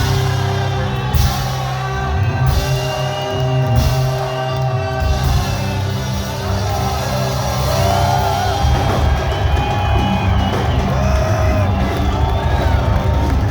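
Live rock band playing, with singing, a drum kit and whoops from the crowd.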